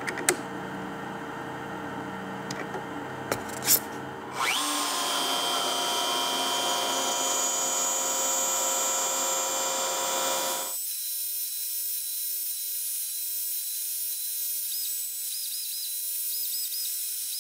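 CNC router spindle on an X-Carve spinning up with a rising whine, then running with a steady high-pitched whine as a V-bit engraves a thin aluminum sheet. Two sharp clicks come in the first few seconds, before the spindle starts.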